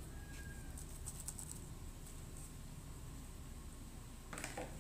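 Faint sticky squishing of a shampoo slime being kneaded and pulled by hand in a plastic bowl, with a few small clicks about a second in and a short louder squelch near the end.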